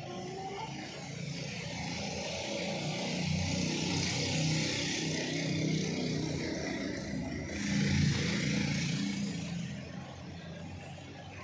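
A motor vehicle going by, its engine hum and road hiss swelling over several seconds and easing off near the end.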